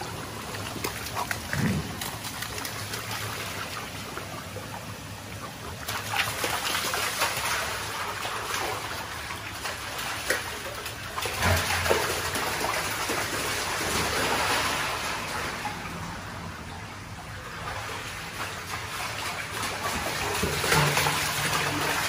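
Dogs splashing and running through shallow running water over a concrete channel floor, paws slapping the water, over a steady trickle of flowing water. The splashing gets busier and louder a few seconds in.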